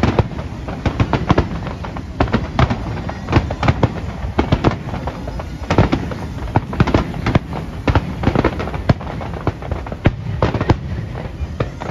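Aerial fireworks display: a dense, irregular barrage of shell bursts and crackling bangs, several a second.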